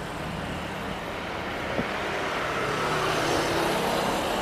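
Motor traffic passing close by on a city road: car and motorcycle engines and tyre noise, growing slowly louder.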